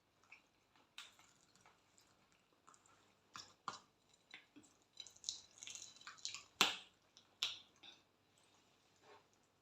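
People eating, with faint chewing and scattered wet mouth clicks and smacks; the sharpest click comes about six and a half seconds in.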